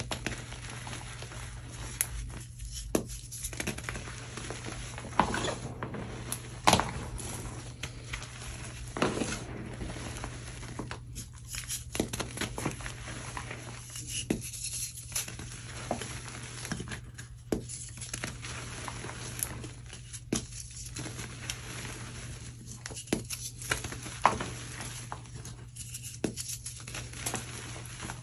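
Blocks of gym chalk crushed and crumbled by hand in a tub of loose chalk powder: irregular crunches and crackles as the pieces break, with soft sifting as powder falls through the fingers. The sharpest crunch comes about six and a half seconds in.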